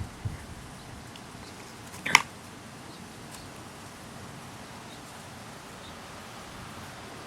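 English bulldog handling a large rawhide bone: a couple of soft low thumps at the start, then one brief, sharp, louder noise about two seconds in, with quiet room noise otherwise.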